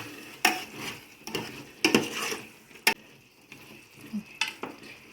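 A spoon stirring chicken and masala in a cooking pot, clacking and scraping against the pot a handful of times at irregular intervals.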